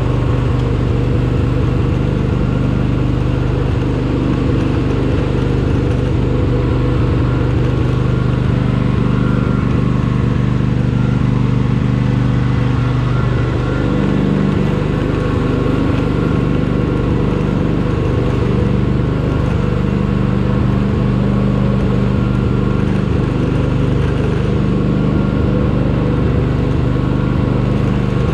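Kohler Courage engine of a Toro LX460 lawn tractor running at a steady pitch while the tractor is driven along.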